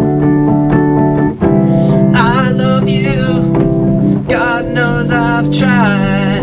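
A song between sung lines: sustained keyboard chords, with a wavering melody line with heavy vibrato rising over them about two seconds in and again about four seconds in.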